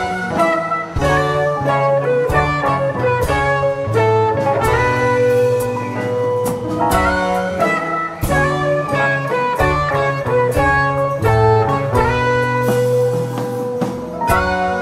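Live band playing an instrumental jam: electric lead guitar over bass guitar and drums, with no singing.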